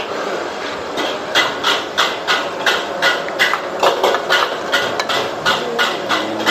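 Metal spatula striking a wok again and again, about three sharp clangs a second.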